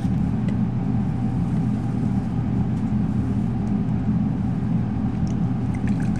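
A motor running steadily with a low, even hum and rumble.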